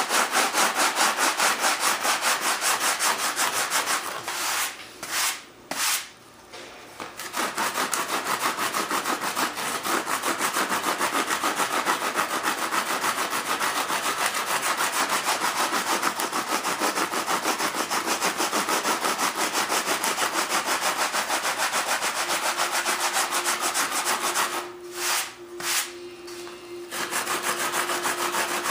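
Hand sanding with coarse 36-grit sandpaper on cured epoxy on a composite model-jet wing: rapid, even back-and-forth scratching strokes, with two brief pauses, about five seconds in and about twenty-five seconds in.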